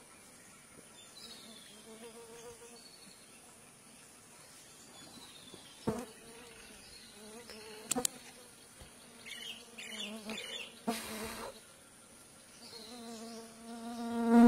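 Flying insects buzzing close to the microphone, coming and going, with the loudest pass right at the end. Two sharp clicks about six and eight seconds in, and a few faint high chirps.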